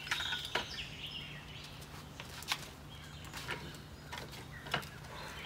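Birds chirping, with a few light knocks and clicks from a person settling into a power wheelchair, over a faint steady low hum.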